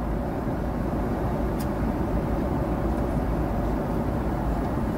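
Steady low rumble of a Boeing 777-300's cabin, with a single short click about one and a half seconds in as a tray table is unfolded from the seat armrest.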